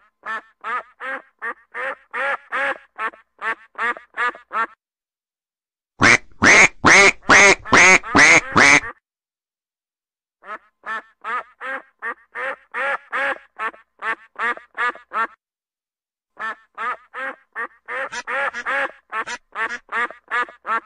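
Duck quacking in quick runs of about three quacks a second, with short silent breaks between runs; the loudest run comes about six seconds in.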